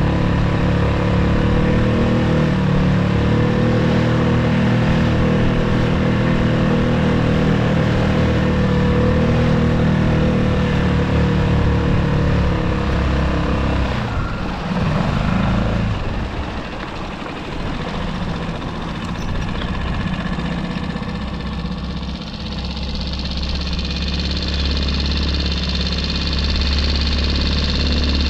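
Skiff's outboard motor running steadily under way, then throttled back about halfway through, with a short change in pitch as it slows; after that, a lower steady engine sound under hissing wind and water.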